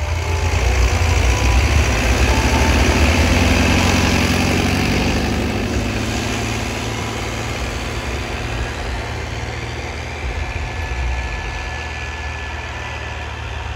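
Two tractor diesel engines, a Farmtrac 6065 and an HMT 5911, running under load as they pull tillage implements through the soil. Louder for the first several seconds as they pass close, then easing off as they draw away.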